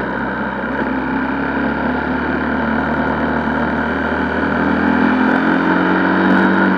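Honda XR125L motorcycle's single-cylinder engine running under way, over a steady rush of wind and road noise; the engine pitch climbs a little near the end.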